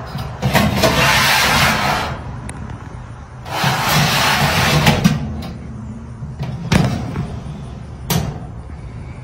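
Countertop toaster oven being handled: two scraping, sliding noises each about a second and a half long, then two sharp clacks near the end.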